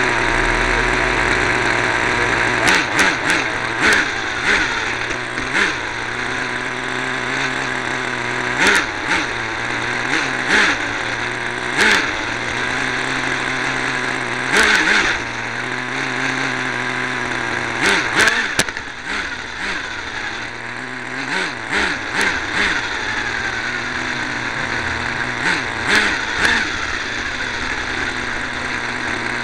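Small two-stroke nitro (glow-fuel) engine of an RC car running close to the onboard camera, buzzing steadily and revving in repeated brief surges as the car drives.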